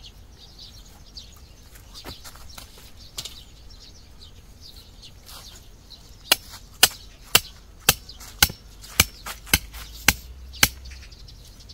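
A run of about nine sharp, loud knocks, evenly spaced at roughly two a second, starting about six seconds in, with faint bird chirps before them.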